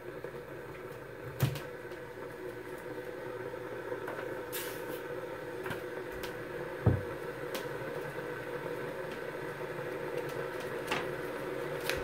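Krups BW760D51 electric gooseneck kettle heating water, a steady hum and hiss that grows slowly louder, with a couple of light knocks; the water is part-way up, about 125–130°F and well short of the boil.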